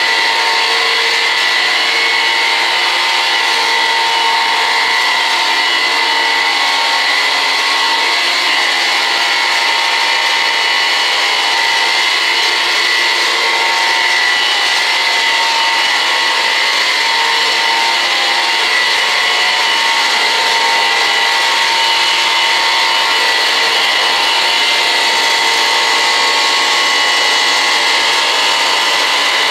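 A blower-type electric motor running steadily without a break, a high whine over a rush of air.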